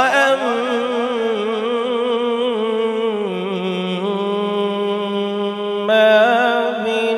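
A man's melodic Quran recitation: long, drawn-out chanted notes with a wavering, ornamented pitch. The voice starts with an upward sweep and rises into a louder, higher phrase about six seconds in.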